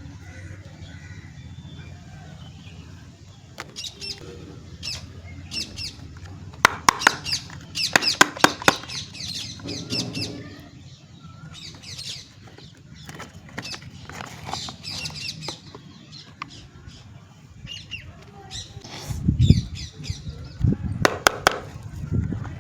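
Soap packaging being handled and unwrapped: bursts of crinkling, crackling paper and plastic wrapper with sharp clicks, and a few dull knocks near the end.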